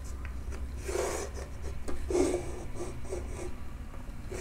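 Chalk scraping along a straightedge on a chalkboard, drawing lines in several short strokes. The longest strokes come about one and two seconds in, followed by a few quicker ones.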